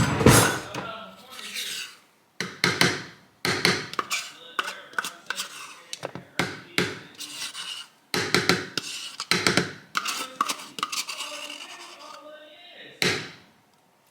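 A spoon scraping and clinking against kitchenware, with irregular knocks and rubbing sounds and a few short pauses.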